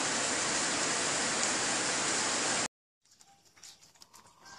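Pot of soup at a rolling boil: a steady, even hiss that cuts off suddenly about two and a half seconds in, leaving near silence with a few faint knocks.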